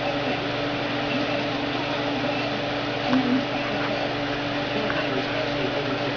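Steady machine-like hum and hiss with a constant low tone, with one short low sound about three seconds in.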